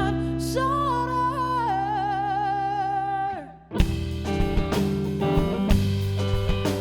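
Live band music. A long held note with vibrato over sustained chords fades out about halfway, and after a short gap the band comes back in with guitar and drums.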